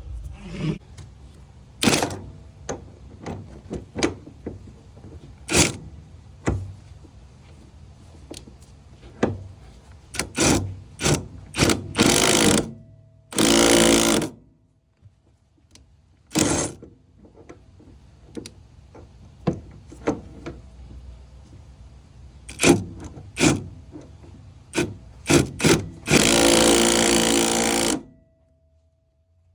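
Hand tools working a nut splitter on a seized, rusted shock-absorber nut: irregular metallic clicks and knocks, with two longer, loud rasping runs of wrench or ratchet cranking.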